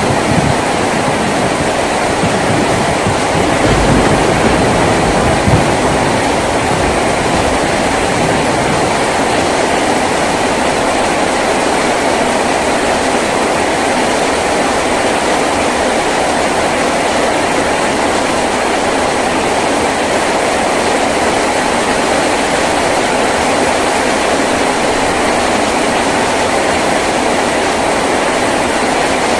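Heavy rain drumming steadily on a tin roof, with a low rumble in the first few seconds.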